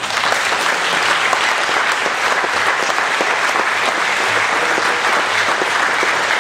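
Church congregation applauding, a steady clapping of many hands that starts suddenly and holds at the same level throughout.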